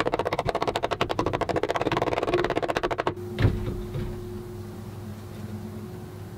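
A small mallet tapping the finger joints of a wooden box together in a rapid even run of taps, about ten a second, that stops abruptly about three seconds in. A single thump follows, then only a faint steady hum.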